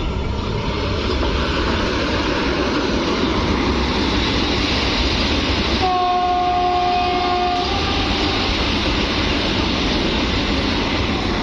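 Vande Bharat Express passing close at speed: a loud, steady rush of wheels and air, with its horn sounding once for about a second and a half, about six seconds in.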